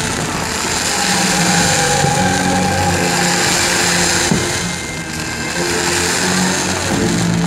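Steady, loud rushing hiss of fountain fireworks (gerbs) spraying sparks, with sustained music tones underneath.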